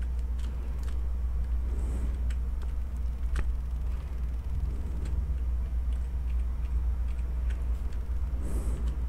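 Steady low electrical hum in the recording, with a few faint clicks, such as a stylus tapping a graphics tablet or a mouse button.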